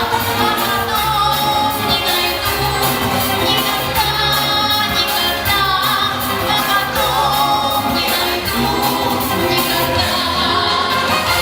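Pop music with a steady drum beat and sung vocal lines.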